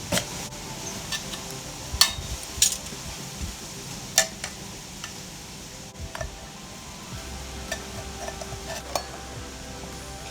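Metal clinking: sharp separate taps every second or two, some ringing briefly, over faint steady background music.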